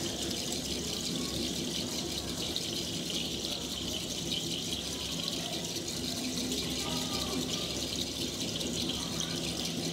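Steady hiss of a hushed hall full of people, with faint voices now and then.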